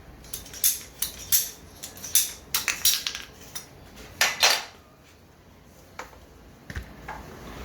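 Hard clicks and clinks of tools and pipe fittings being handled, about a dozen in quick succession over the first four and a half seconds, then a few fainter ticks.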